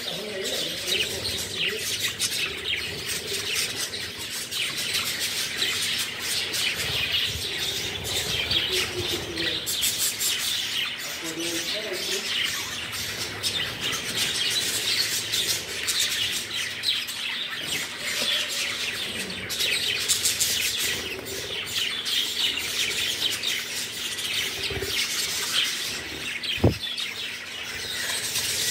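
Flock of budgerigars (parakeets) chirping and warbling without a break, many birds overlapping in a dense chatter. One sharp knock near the end.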